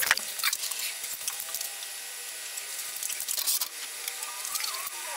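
Scattered light knocks, clicks and rubbing of hands handling wood and metal at a wood lathe, with the lathe's motor not running.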